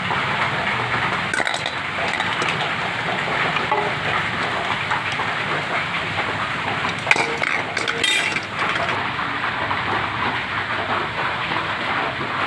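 Heavy rain falling steadily, with a few clinks of a steel spoon against steel cookware about seven to eight seconds in.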